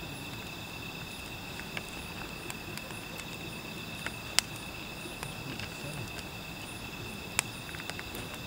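Night insects chirring steadily and high, while firewood burns in a metal fire pit, crackling with scattered small clicks and two sharp pops, about four and seven seconds in.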